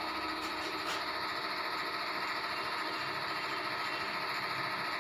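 Steady low hum and hiss of room background noise, with two faint clicks about half a second and a second in.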